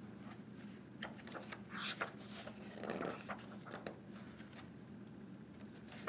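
Paper pages of a picture book rustling and flapping as they are turned by hand, the louder rustles about two and three seconds in.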